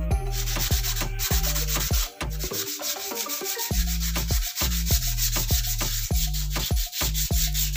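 Sandpaper rubbing back and forth over cured white cement, a steady scratchy hiss. Background music with a regular beat and deep, falling bass notes plays over it.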